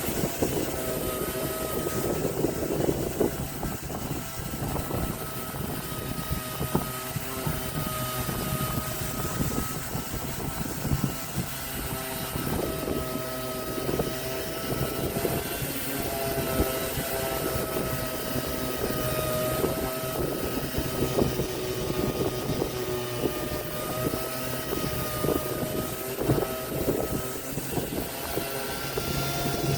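Electric woodworking power tool running continuously while cutting or sanding wood, its motor whine wavering slightly in pitch over a rough, scratchy noise.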